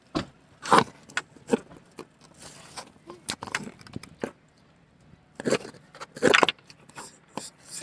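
A string of knocks, clicks and rustles from things being handled and moved about inside a car, with louder clatters about a second in and again twice between five and six and a half seconds.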